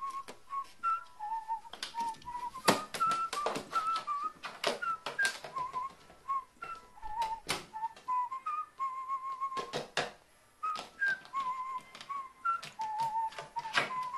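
Whistled background melody, one clear note at a time, stepping up and down, with irregular sharp clicks and taps laid over it in bunches.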